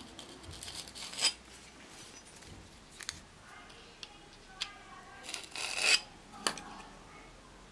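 Steel caliper jaws handled against a steel knife blank: a few light metallic clicks and short scrapes as the jaws slide onto the blade to measure its thickness, the loudest a brief scrape about three quarters of the way in.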